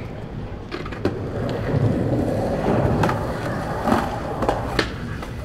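Skateboard wheels rolling over concrete, the rumble growing louder as the skater approaches, with a few sharp clicks.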